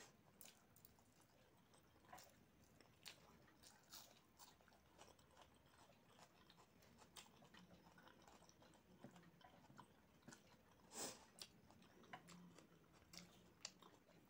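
Faint chewing and mouth smacks from someone eating rice and curry by hand, heard as scattered soft clicks, the loudest about eleven seconds in.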